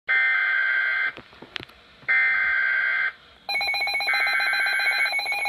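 Emergency alert broadcast tones: two one-second bursts of shrill data tones about a second apart, then a steady, rapidly pulsing alarm tone starting about three and a half seconds in, with a third data burst over it. This is the start of a severe thunderstorm warning alert.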